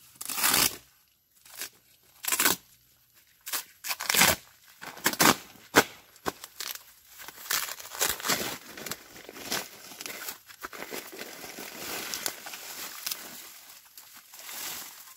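A woven plastic feed sack packed with soil is torn open by hand. There are several sharp rips in the first six seconds. After that comes a longer stretch of crinkling and rustling as the sack is peeled back off the mound of earth.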